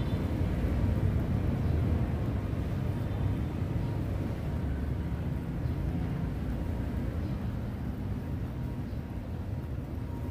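Steady low outdoor rumble with no distinct events, easing slightly in level over the stretch.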